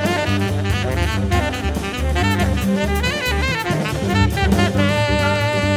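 Jazz background music: a saxophone melody over bass and drum kit, settling into a long held note near the end.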